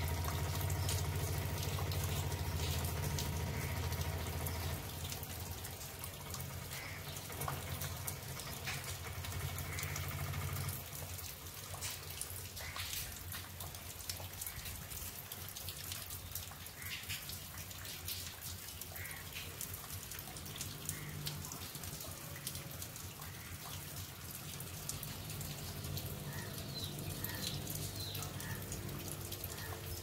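Light rain falling with many scattered drips, and rainwater running and trickling off a terrace. A low hum underneath is loudest for the first ten seconds or so, and a few short high chirps come near the end.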